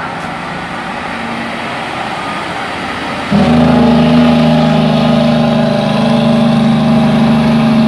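Heavy diesel tractor-trailer pulling a tanker, engine running as it goes by. A low rumble at first, then a little over three seconds in it turns abruptly louder into a steady, deep engine drone.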